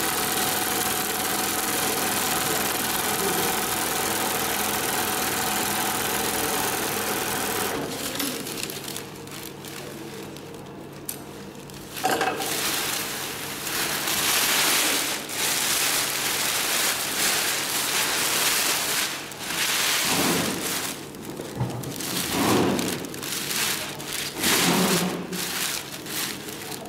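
Long-arm zigzag sewing machine running steadily as it stitches sail cloth, stopping about eight seconds in. Later, large sheets of crinkly sail cloth rustle in irregular swells as they are pulled and shifted.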